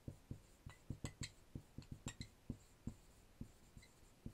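Marker writing on a whiteboard: a faint, irregular run of short taps and strokes, a few a second, as the letters are written.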